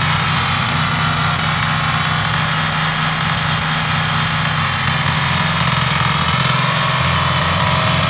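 Walk-behind mini rotary tiller's small engine running steadily under load while its tines turn the soil.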